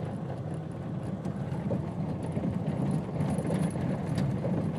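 Car's cabin noise while rolling slowly over a rough, torn-up dirt road: a steady low rumble from the tyres and suspension, with a few faint rattles, the car shaking on the uneven surface.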